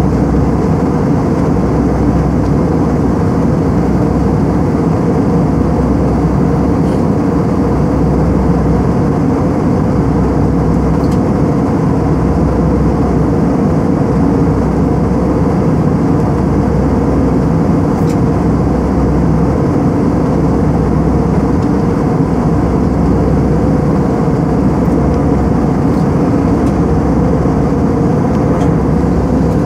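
Steady drone of a jet airliner's engines and airflow as heard inside the passenger cabin in flight.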